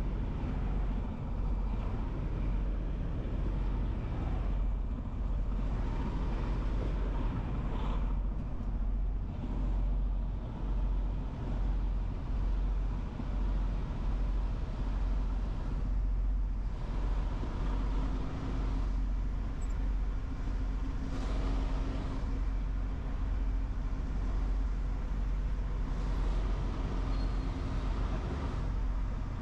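Heavy truck running on the road: a steady, deep engine drone with road noise, swelling a little in loudness now and then.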